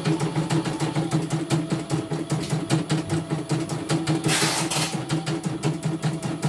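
CNY E900 computerised embroidery machine stitching a design: a fast, even run of needle strokes over the steady hum of its motor. A brief hiss comes about four seconds in.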